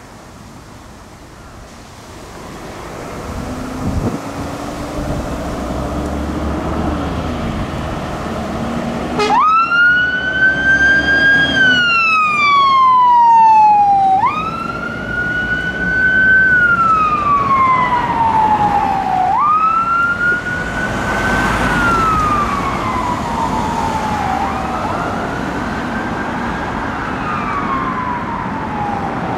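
Scania fire engine's siren sounding a wail: a quick rise, then a slow fall, repeating about every five seconds. It starts about nine seconds in, is loudest as the rescue pump passes close, and then grows fainter as it moves away. Before the siren starts, the truck's heavy engine is heard pulling away.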